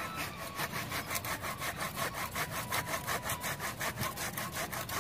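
A hand blade worked rapidly back and forth against the roots at the base of a serut (Siamese rough bush) tree, sawing and scraping through them in an even rhythm of about five strokes a second.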